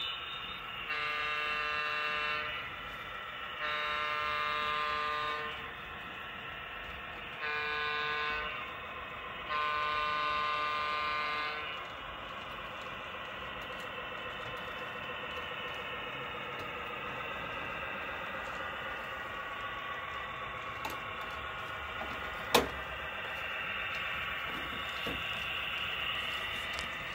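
Sound-equipped model locomotive blowing the long-long-short-long crossing signal on its horn, four chord-like blasts, then its steady running sound as it pulls the train. A single sharp click comes about two-thirds of the way through.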